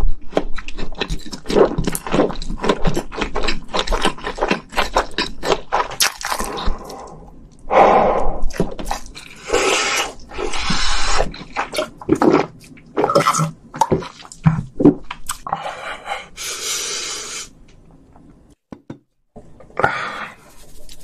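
Close-miked eating sounds: wet chewing and lip smacking with many quick mouth clicks for the first several seconds. Then comes a run of loud, breathy gasps and puffs of breath a second or so apart, a reaction to the burning heat of Buldak fire noodles.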